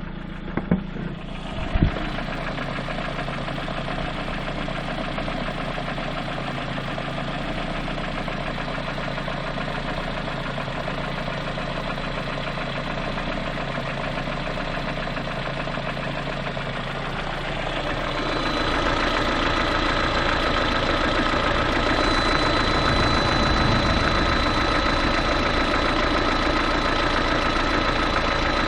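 Lada Priora engine running warm at 90° coolant temperature, with a knock that the owner takes for piston knock. Two sharp clicks about a second in; about eighteen seconds in the running gets louder and a steady whine joins it.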